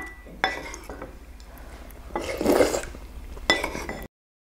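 Wooden spoon clinking and scraping in a ceramic bowl of doenjang soup, with a sharp knock about half a second in and another near the end, and a slurp of soup about two seconds in. The sound cuts off suddenly near the end.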